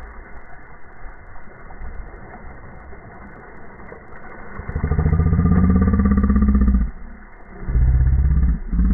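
Motorboat engine coming in loud about halfway through, running at a steady pitch, dropping away for a moment near the end and picking up again.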